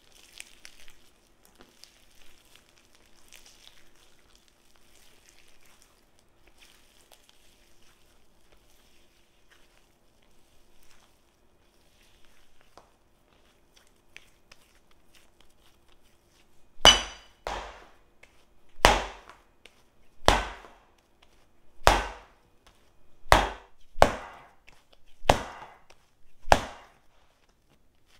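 Yeast bread dough kneaded by hand on a countertop: at first only faint squishing of the sticky dough. Then, from a little past halfway, comes a run of about nine loud slaps as the dough ball is thrown down against the counter, roughly one every second and a half.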